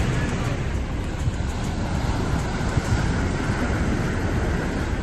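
Steady, loud rumbling noise of wind buffeting the microphone at the seashore, with no distinct events.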